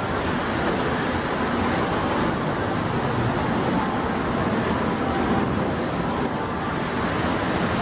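Steady rushing noise of strong wind and sloshing swimming-pool water on an open ship deck in rough seas.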